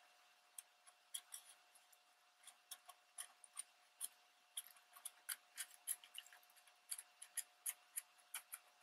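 Black felt-tip marker scratching in short, quick strokes along the torn deckle edge of magazine paper: a faint, irregular string of small scrapes.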